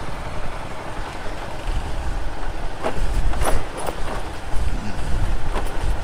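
Bajaj Pulsar motorcycle running at low speed over a rough, muddy dirt track, a steady low engine-and-road rumble. A few sharp knocks and rattles from the bike jolting over bumps come from about three seconds in.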